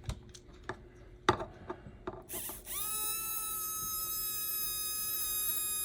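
A few light clicks of small parts being handled, then about two and a half seconds in the electric motor of an HO-scale slot car chassis starts up and runs with a steady, high-pitched whine.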